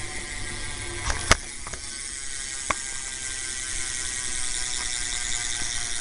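Rear hub of a Black Eye Pistola BMX bike ratcheting as the wheel spins, its pawls clicking so fast they run together into a buzzing whir. A few sharper knocks break in: one about a second in, the loudest just after it, and a smaller one near the middle.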